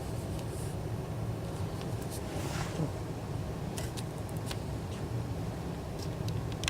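Steady low hum of background noise, with a few light clicks and taps scattered through it.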